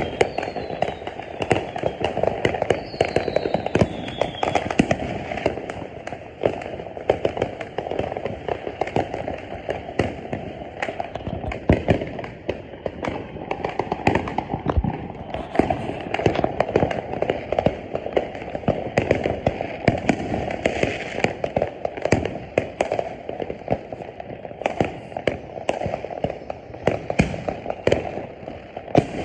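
New Year fireworks and firecrackers going off without pause: a dense, irregular barrage of bangs and crackling, with a couple of falling whistles in the first few seconds.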